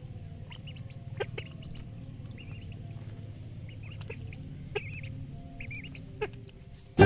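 Young domestic ducks peeping in short high calls while paddling in a shallow paddling pool, with a few sharp splashes and a steady low hum underneath. Children's music with piano starts right at the end.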